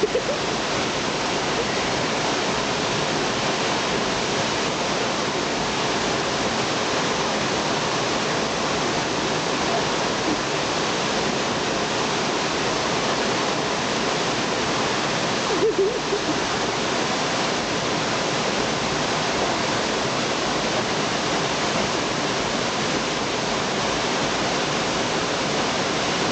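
Steady rushing of water, even and unbroken apart from a brief break about sixteen seconds in.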